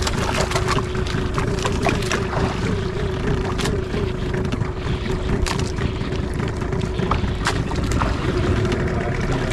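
Boat engine idling steadily under wind and water noise, with a few sharp knocks about three and a half, five and a half and seven and a half seconds in.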